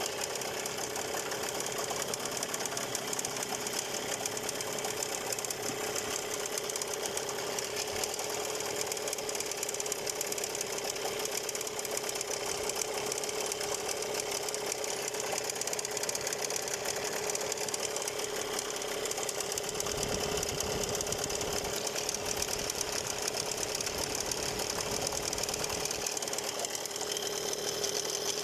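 Gladiator 9.8 two-stroke outboard motor running steadily with an extraneous rattle, which the owner suspects is the ignition plate. About two-thirds of the way through, a deeper rumble joins for several seconds.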